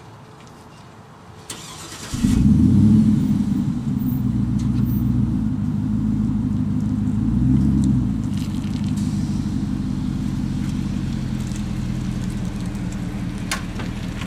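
A vehicle engine is started about two seconds in, catching at once and running fast for a moment. It then settles to a steady idle, with a brief rise in revs a few seconds later.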